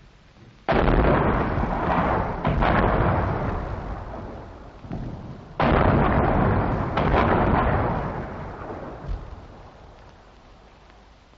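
British artillery barrage: two heavy gun reports, about a second in and again about halfway, each rumbling away over several seconds, with smaller bangs in between.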